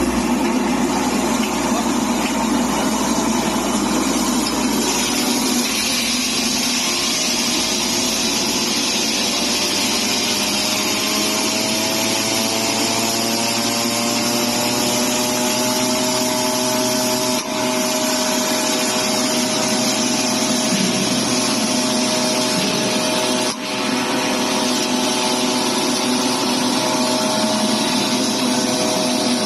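Herb and spice grinding machine (pulverizer) running steadily with a loud mechanical whir and hum. Its tone rises slowly in pitch over the first half before levelling off, with two brief dips about two-thirds of the way through.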